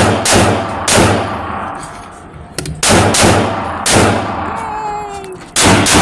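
Gunshots in an indoor shooting range, about seven in uneven groups, each with a ringing echo off the range walls.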